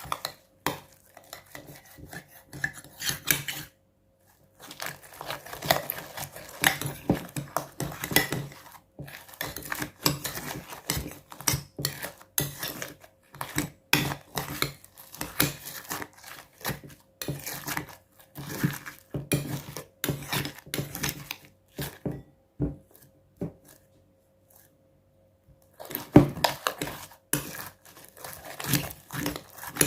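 Utensil scraping and clinking against a bowl while stirring glue-and-borax slime, in quick irregular strokes, with a pause of a few seconds shortly before the end.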